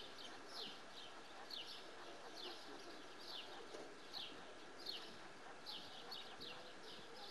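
A small bird chirping over and over: short, faint, high notes that fall in pitch, about two a second.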